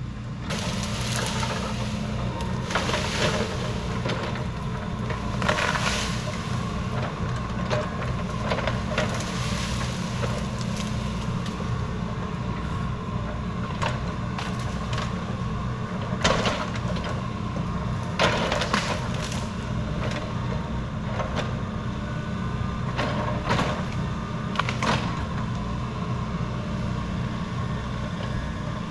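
Heavy tracked machine's engine running steadily, with repeated sharp cracks and crunches of branches and wood breaking under it.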